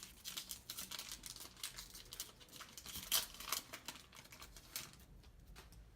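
Foil booster-pack wrappers crinkling and crackling in the hands as trading-card packs are opened and handled. The crinkling is busiest in the first three seconds or so, then thins out and goes quiet near the end.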